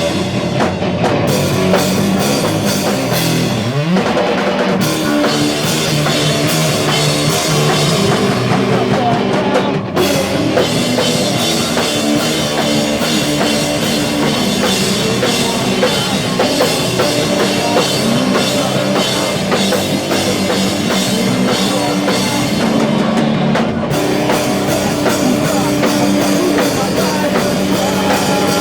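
Rock band playing live: guitar and a drum kit, loud and continuous, with a rising slide about four seconds in and a brief break about ten seconds in.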